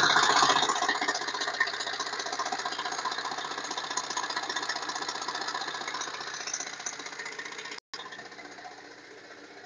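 Chrysler Voyager turbodiesel engine running with a steady diesel clatter and rattle, loudest at the start and slowly getting quieter, with a brief cut-out nearly 8 s in.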